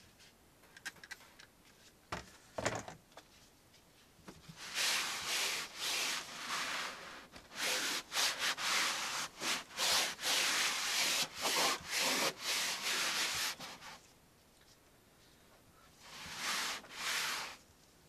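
Cloth rubbing back and forth over a plastic dashboard in quick repeated strokes. The strokes start about four seconds in and stop for a couple of seconds, then a few more strokes come near the end.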